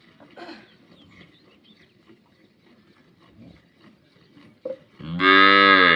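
A cow moos once, about five seconds in: a loud call of about a second whose pitch rises and falls.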